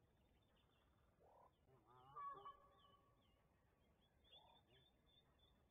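Faint bird calls: a short call with several pitched notes about two seconds in, with weaker calls about a second in and again near four and a half seconds, over small repeated high chirps.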